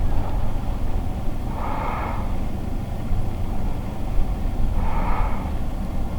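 Steady low rumble with a soft breath about every three seconds, twice.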